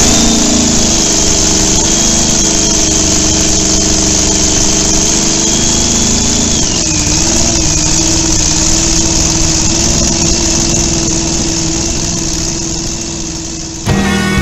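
A homemade chopper motorcycle's large engine idling steadily, its speed dipping briefly about halfway through. Rock music cuts in at the very end.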